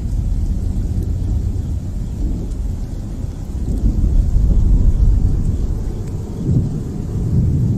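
Rolling thunder from a gathering storm, a continuous low rumble that swells about four seconds in and eases again.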